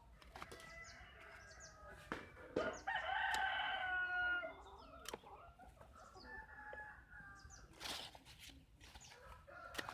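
A loud bird call lasting about a second and a half, starting about three seconds in, with scattered sharp clicks and faint high chirps around it.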